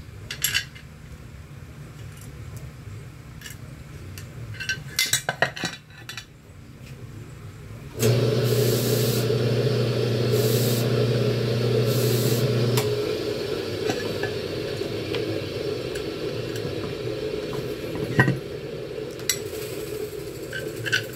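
Metal clinks and rattles of an aluminium pressure-cooker lid and small loose parts being handled and fitted. About eight seconds in, a steady low hum starts abruptly and runs on, louder at first, with a few short hisses over it.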